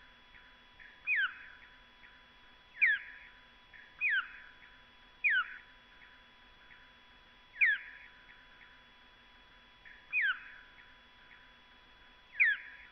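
Bat echolocation calls, slowed down so they fall within human hearing: a series of short downward-sweeping chirps, seven of them, at uneven gaps of one to two and a half seconds.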